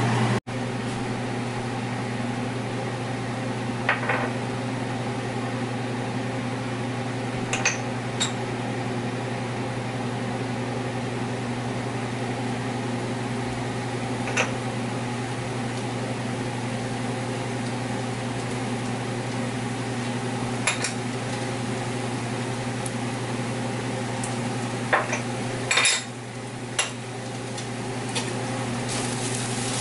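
Small dishes and a spoon clinking against a metal skillet now and then as spices and raisins are tipped into a pan of browned ground beef, over a steady fan hum. Near the end the pan starts to sizzle.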